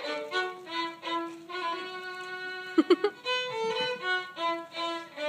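Solo violin playing a melody of separate bowed notes, with a couple of quick, sharp strokes about three seconds in.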